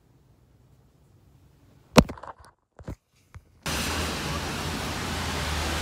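A sharp click about two seconds in and a few softer clicks, then steady city street noise with a low traffic hum from about three and a half seconds in.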